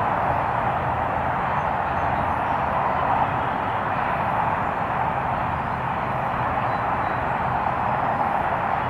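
Steady outdoor background noise: a constant hiss with a faint low hum underneath, and no distinct knocks or clicks.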